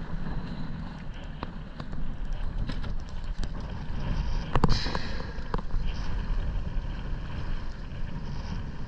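Wind buffeting the microphone over choppy sea, with water slapping against an inflatable boat and scattered clicks and knocks as a speargun and its line are handled.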